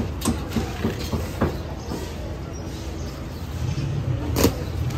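A sheet of newspaper crinkling as it is smoothed flat by hand and a naan is laid on it, with a few sharp paper crackles in the first second and a half and a louder one near the end, over a steady low background rumble.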